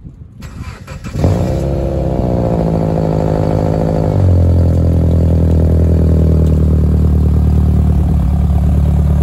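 An engine starting about a second in and then running steadily, its note settling lower and steadier about four seconds in.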